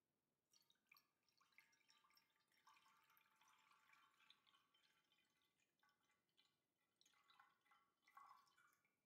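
Faint trickling and splashing of a thin stream of coffee and condensed-milk mixture poured from a glass jug into a glass baking dish already part-filled with the liquid. The sound starts about half a second in, eases off briefly, then comes back in a last few splashes as the stream tails off near the end.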